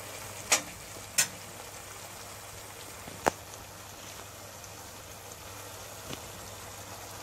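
Pan of steamed cabbage and sausage cooking with a steady soft sizzle. Three sharp knocks in the first few seconds and a fainter one near the end.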